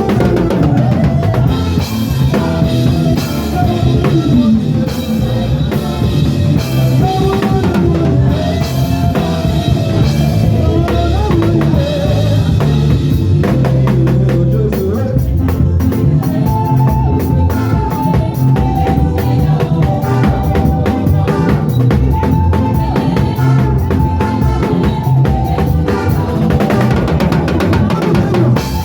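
Gospel band playing an instrumental passage of a praise-and-worship medley: a drum kit with bass drum and snare, a heavy bass line and melodic lines over the top.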